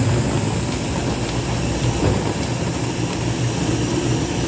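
Push-top countertop blender running steadily at full speed, its motor humming as the blades churn a green smoothie of frozen spinach, fruit and almond milk.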